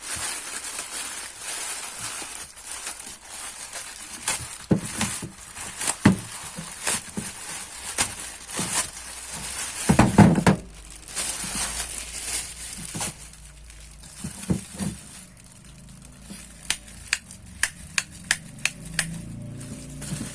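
Plastic packaging crinkling and rustling as a parcel is unwrapped and handled, with scattered knocks. Near the end comes a run of sharp clicks, about two a second.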